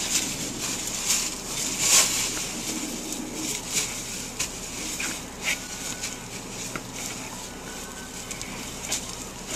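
Dry fallen leaves crackling and rustling under two young brown bears as they scuffle over a basketball, in irregular crunches with the loudest about two seconds in.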